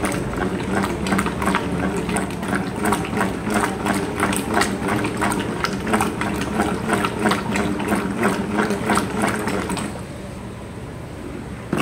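A plastic stirring stick churning a thick silicone-emulsion dressing mix in a plastic pail: a quick, steady rhythm of scrapes and knocks against the pail with a wet churning, as thickener is mixed in. The stirring stops about ten seconds in.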